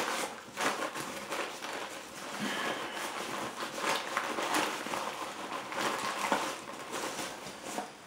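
Hands rummaging in a fabric pouch of a Vanquest Trident 20 sling bag: irregular soft rustling of the bag material with light clicks and taps of small items being moved about.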